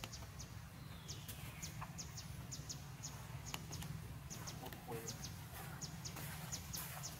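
Forest ambience: short, high chirps repeating a few times a second over a steady low rumble, with one faint falling call about a second and a half in.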